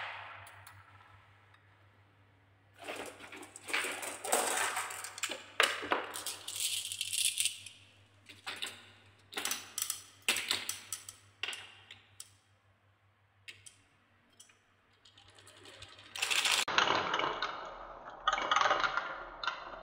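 Glass marbles rolling along wooden marble-run tracks and clicking against each other and the wood, in irregular clattering runs with a lull of a couple of seconds partway through. Near the end, marbles roll around a wooden spiral track.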